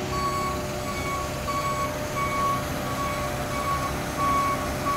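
Marine travel lift moving with a yacht in its slings: its motion alarm beeps steadily, about one and a half beeps a second, over the low, steady running of its engine.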